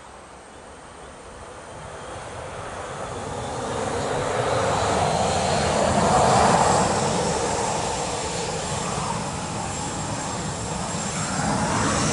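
Jet engines of a Boeing 737-900ER (CFM56 turbofans) moving along the runway, growing louder as it approaches, with a high whine over the engine noise. Near the end the whine rises in pitch and the sound swells again.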